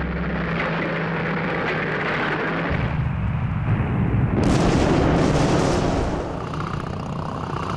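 Battle sound effects: a continuous rumble of explosions and artillery-like blasts, swelling about four and a half seconds in and easing after six seconds, over a low steady hum.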